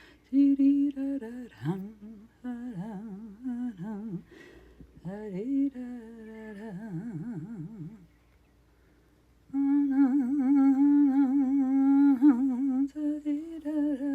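A woman humming a wordless tune in a wavering voice, in short phrases, then pausing for about a second and a half before a long held note near the end.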